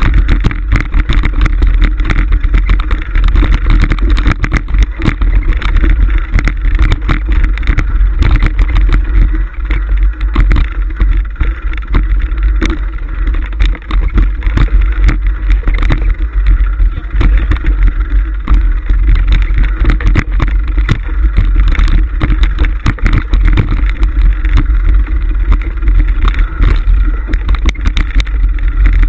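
Mountain bike rolling over a rocky dirt singletrack, heard through a camera mounted on the bike: a loud, steady low rumble with constant rattling and knocking as the bike jolts over stones.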